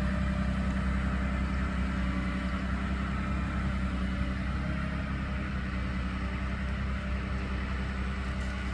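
Engine of farm harvesting machinery running steadily, a low, even hum with no change in speed.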